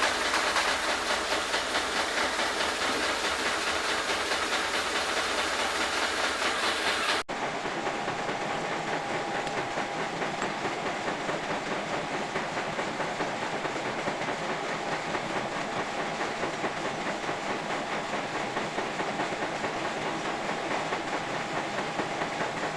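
Metal lathe running while machining steel, a steady noisy sound with an even pulsing several times a second. About seven seconds in the sound cuts abruptly to a duller version of the same running machine.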